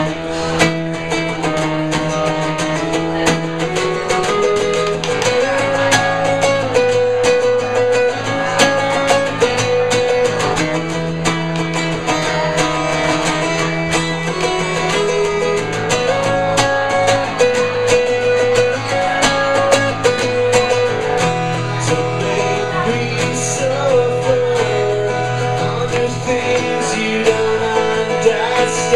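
Acoustic guitar played live, with a steady strummed rhythm and moving melody notes, as the opening of a song.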